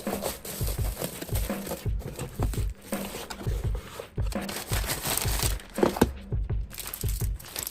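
Plastic packaging crinkling and rustling as items are packed by hand, with a string of soft, low knocks of handling on a table.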